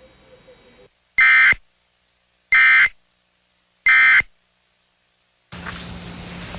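Emergency Alert System end-of-message signal: three short bursts of squawking digital data tones, each about a third of a second long and a little over a second apart, marking the end of the alert. Near the end a steady hiss with a low hum starts.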